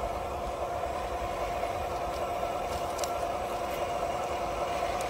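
Engine of a radio-controlled model Caterpillar D9 crawler tractor running steadily with an even pitched hum as it crawls along towing a loaded log trailer, with faint clicks from the tracks.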